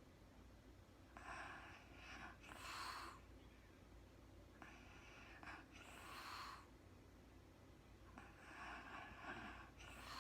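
A sleeping woman breathing slowly with a faint snore. There are three breaths about three and a half seconds apart, each a buzzing snore followed by a short breathy rush of air.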